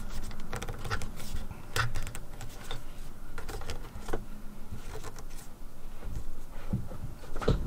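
Scattered small clicks, scrapes and rustles of plastic-sheathed electrical cable being pushed into the clamp of a round metal ceiling box.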